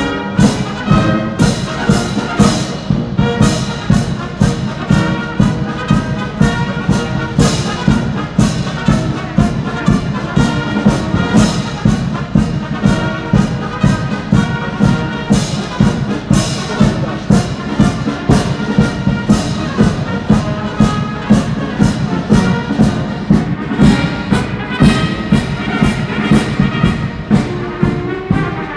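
Military wind band playing a song: brass leads over a steady drum beat, heard through a mobile phone's microphone.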